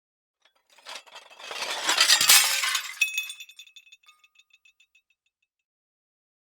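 Glass shattering: a crackle about a second in grows into a loud crash, then a sharp hit leaves ringing shards and scattered clinks that die away about five seconds in.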